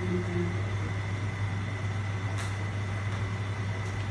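A steady low hum throughout, with two faint small clicks about two and a half and four seconds in.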